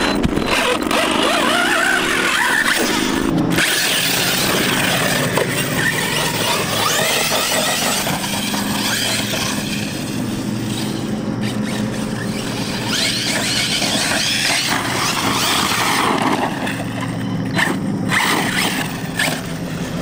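Arrma Kraton 6S BLX electric 1/8-scale RC truggy driving hard over dirt: its brushless motor and drivetrain whine, rising and falling in pitch with the throttle, over a dense hiss of tyres on loose ground.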